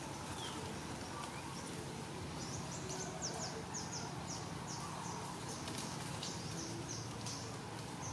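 A bird calling: a run of short, high notes, each falling in pitch, about three a second, starting a couple of seconds in and stopping near the end, over a steady low outdoor hum.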